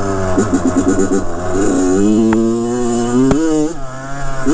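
2007 Kawasaki KX100's 99cc single-cylinder two-stroke engine revving under way on a trail ride. It climbs steadily in pitch, drops sharply after a click about three and a half seconds in, then starts climbing again near the end.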